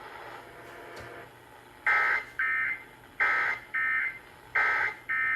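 Emergency Alert System end-of-message signal: short, buzzy digital data bursts that mark the close of the alert test. They begin about two seconds in and come as three pairs of quick bursts.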